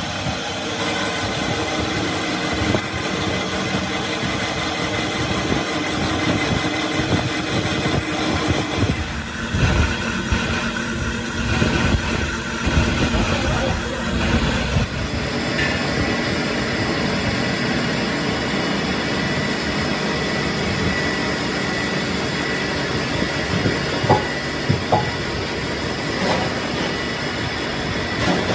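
Cup grinding wheel resurfacing the face of a truck flywheel turning on a lathe: steady machine running with the grind of abrasive on steel. A steady high whine comes in about halfway through, and a few sharp clicks sound near the end.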